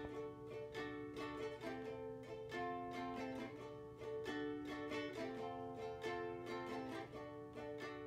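Background music: a light, upbeat tune of quick plucked-string notes, ukulele-like, over held chords.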